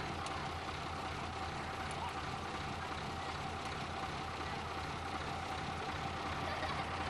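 Fire truck's engine running steadily as it powers the aerial platform: a low, even drone with a thin steady hum above it.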